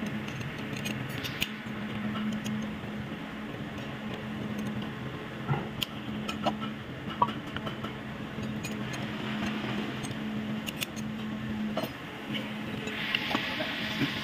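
Scattered small clicks and taps of hand tools and metal parts being handled while a starter is worked on, over a steady low hum. A brief hiss comes in near the end.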